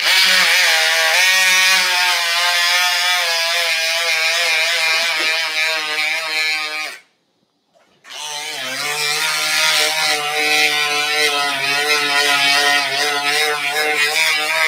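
Powered oscillating bone saw cutting through a dog's tibia for a CBLO osteotomy: a loud pitched whine that runs about seven seconds, stops for about a second, then starts again and runs on, its pitch wavering slightly as the blade works through the bone.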